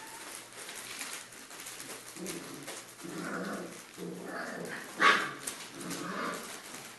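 Three-and-a-half-week-old Pyrenean Mastiff puppies crying out in a series of short puppy sounds, about one a second, as they play-wrestle. One sharp, loud cry about five seconds in is the loudest sound.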